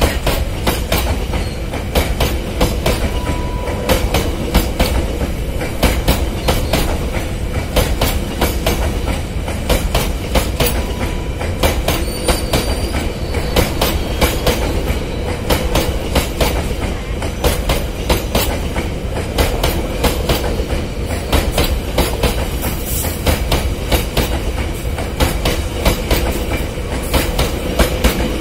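Maharajas' Express passenger carriages rolling past at close range: a steady rumble of wheels on rail, with frequent irregular clacks as the wheels cross rail joints.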